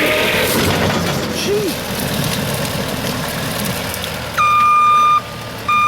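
Heavy machinery running with a rough, noisy sound, then a back-up alarm sounding two steady beeps near the end.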